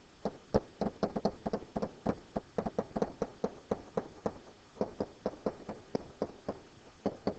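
Pen or stylus tip tapping and clicking against a writing screen in quick, irregular strokes, several a second, as numbers and fractions are handwritten.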